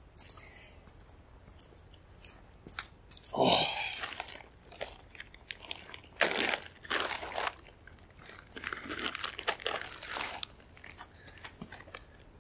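Plastic bags crinkling and crackling in irregular bursts as gloved hands tear open and pull at the wrapping around a rotting head, after a few quiet seconds and with one loud burst of noise about three seconds in.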